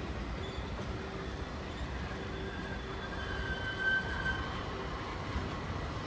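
Thalys high-speed trainset rolling slowly past, a steady rumble of wheels on rail with a thin wheel squeal in the middle, loudest about four seconds in.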